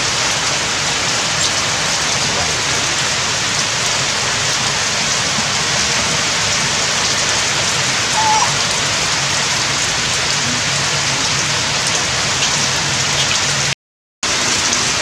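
Steady heavy rain falling on surfaces, an even hiss of drops. The sound cuts out for about half a second near the end, then resumes.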